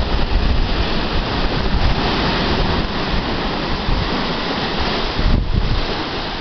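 Wind buffeting the microphone: a steady rushing noise with heavy, irregular low rumbling gusts.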